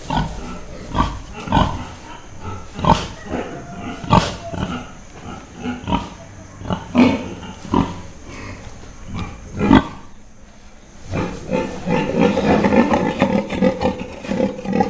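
Pigs grunting in a string of short, separate grunts, giving way about eleven seconds in to a denser, continuous run of pig noise.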